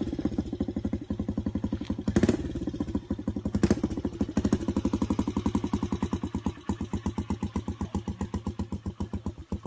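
Motorcycle engine idling with an even, low putter of about nine beats a second, with two short throttle blips a couple of seconds in.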